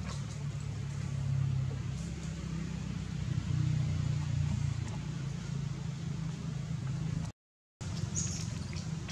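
Steady low rumble with a few faint clicks, cutting out completely for about half a second some seven seconds in.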